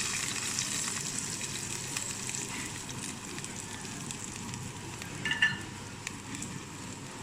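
Tadka of hot oil with cumin seeds, whole red chilies and curry leaves sizzling as it is poured onto karhi curry, the hiss loudest at first and slowly dying down. A brief sharp sound about five seconds in.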